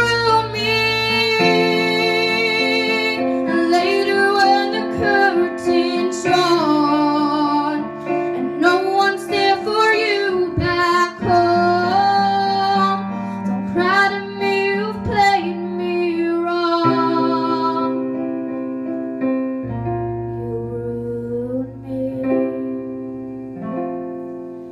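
A female singer sings a melody with vibrato over her own keyboard accompaniment of sustained piano chords. The voice mostly drops out about two-thirds of the way through, leaving the keyboard chords ringing on alone.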